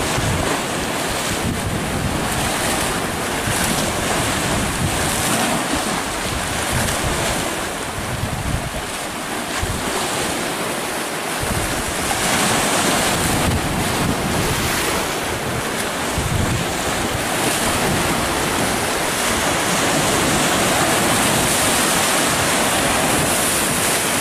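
Choppy sea waves washing and splashing against shoreline rocks, with wind buffeting the microphone in irregular low gusts.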